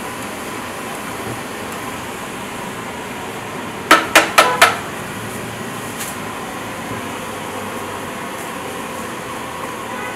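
Four quick, sharp metal clanks with a short ring, a metal spatula struck against a large round steel frying pan, over steady background noise.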